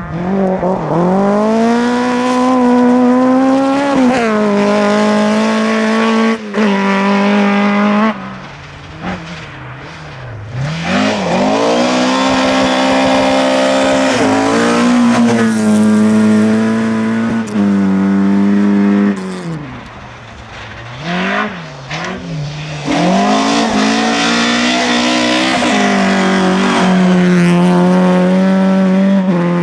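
Rally car engines at full throttle, revving up through the gears, each climb in pitch broken by a drop at the gear change. Three loud spells, one car after another, with quieter gaps between them.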